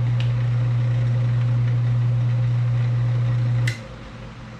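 Electric motor of a Delta wood lathe running with a loud, steady hum. About three and a half seconds in there is a click and the hum drops sharply to a much quieter steady sound.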